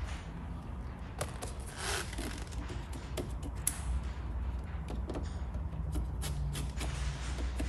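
Vinyl graphic film being pressed and worked by hand on a car door panel: scattered rustles, light scrapes and small clicks over a low steady hum.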